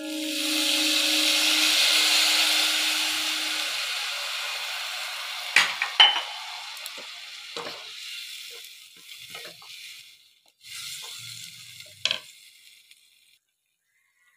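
Water poured into a pan of hot oil and spiced fried vegetables hisses loudly, and the sizzle slowly dies away over several seconds. A wooden spatula stirring the pan knocks against it a few times.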